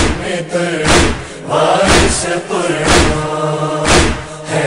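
Men's chorus chanting a noha refrain, held notes between the sung verses, with hands striking chests (matam) in a steady beat about once a second.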